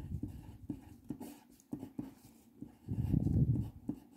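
Pen writing numbers on a paper workbook page: a run of short scratching and tapping strokes, with a louder low rumble about three seconds in.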